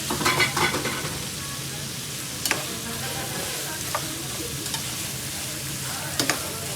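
Food sizzling in a hot pan, a steady hiss. A cluster of utensil clatter comes in the first second, then single sharp clinks about halfway through and near the end.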